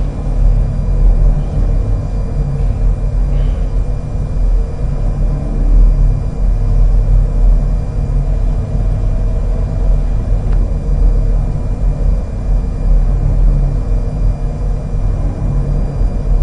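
Steady low rumble of background ambience with a faint constant hum over it, without clear voices or distinct events.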